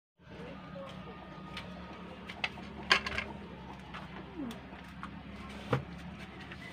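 Lettuce leaves crinkling and crackling in short clicks as a lettuce wrap is folded by hand, over a steady low hum.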